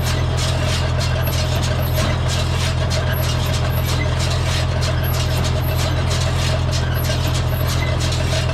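Tractor engine running steadily at an even speed, a constant low drone while baling hay.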